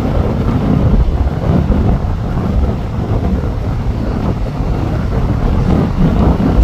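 Strong wind buffeting the microphone: a loud, gusty low rumble that swells and eases every second or so.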